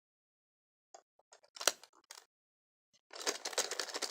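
Plastic toy bull-ride mechanism: a few sharp plastic clicks, then about three seconds in a dense, fast rattling clatter starts and keeps going.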